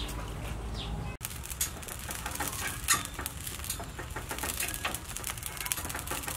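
Fresh rice noodle strands pressed from a noodle press into a basin of water: an irregular patter of small splashes and clicks. A low hum is heard before it begins, about a second in.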